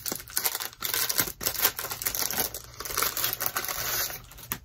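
Packaging crinkling and rustling as it is handled, with many small crackles; it quietens near the end.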